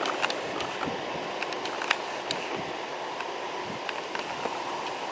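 Airbus A330-300 jet airliner taxiing, its engines running at low thrust as a steady rushing noise, with scattered sharp clicks.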